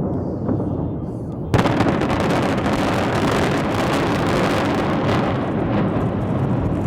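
A reinforced-concrete tower collapsing under explosive demolition. A low rumble turns, about a second and a half in, into a sudden, loud rushing noise of the falling structure and debris, which thins out near the end.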